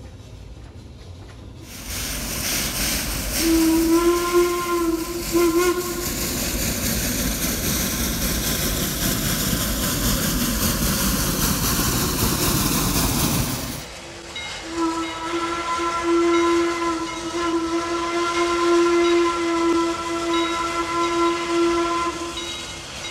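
Steam locomotive whistle blowing over a loud hiss of escaping steam. There is a short blast about four seconds in. Then the hiss stops and a long, steady blast of the whistle lasts about eight seconds.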